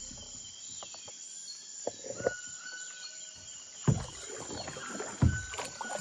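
Double-bladed paddle dipping into a slow creek beside a plastic kayak: a few splashing strokes with light knocks, the loudest about four seconds in. Behind them the rainforest keeps up steady chirps and whistles from its animals.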